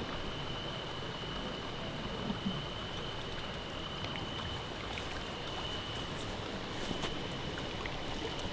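Steady night-time outdoor hiss with a continuous high-pitched insect trill. Faint scattered clicks come in from about halfway.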